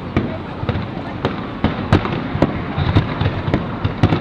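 Fireworks display: a rapid, irregular run of sharp bangs, about a dozen in four seconds, over a steady low rumble.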